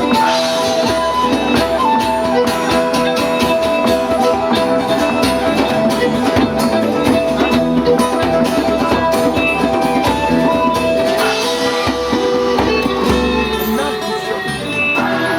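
Live band playing an instrumental passage, with guitar prominent and a steady beat, between sung verses.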